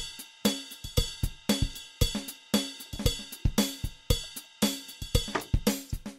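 Background music: a drum-kit beat with hi-hat and cymbals, about two hits a second.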